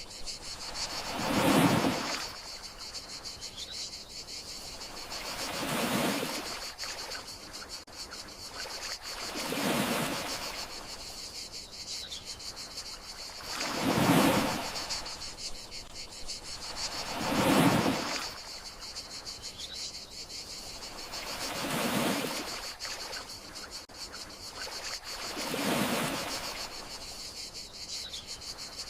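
Gentle sea waves washing in about every four seconds, each swelling and fading away, over a steady high chirring of crickets.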